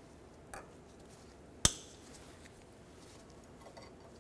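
Side cutters snipping off the excess leg of a steel cotter pin at a tie rod end's castle nut: one sharp metallic snip about a second and a half in, with a fainter click before it and a few light ticks near the end.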